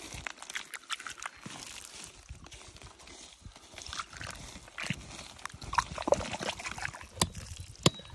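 Water poured over a broken-open geode held in the hand, splashing and trickling into the crystal cavity, with scattered clicks of stone and gravel and a couple of sharp knocks near the end.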